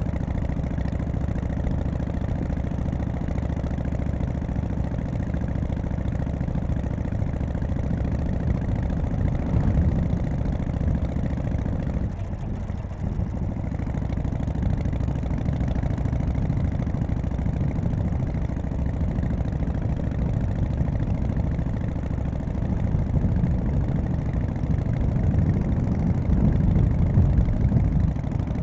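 1991 Harley-Davidson FXSTC Softail's Evolution V-twin engine running on the road. It gets louder about ten seconds in and again near the end, with a short dip around twelve seconds in.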